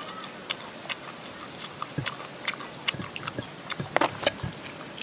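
Eating sounds: irregular sharp clicks and smacks from chewing cooked softshell turtle and pulling the meat apart by hand, with a few dull thumps.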